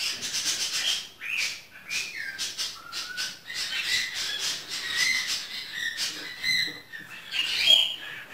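A pet bird chattering without pause: a stream of short chirps, whistled notes and squawks.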